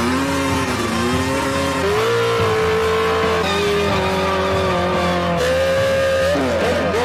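Motocross dirt bike engine held at high revs, its pitch rising, dipping and holding, while the rear tyre spins in a smoky burnout on asphalt.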